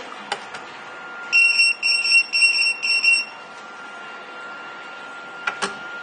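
Restaurant coaster pager's buzzer beeping when it is called: a rapid run of high-pitched beeps lasting about two seconds, starting a little over a second in. Near the end there is a sharp plastic clack as a pager is handled on the charging stack.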